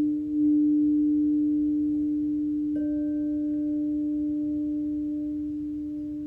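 Crystal singing bowls ringing: a steady, pure low tone with a few higher overtones, slowly fading. About three seconds in, a second, higher tone joins with a light click and rings on alongside it.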